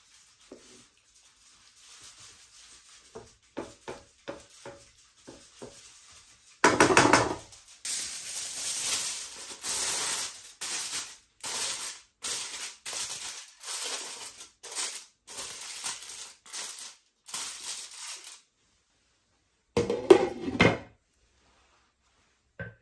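Wooden spoon lightly scraping rice in a wok, then aluminium foil crinkling and rustling in repeated bursts for about ten seconds as it is pressed over the pan. Near the end, a clatter as a glass lid is set on.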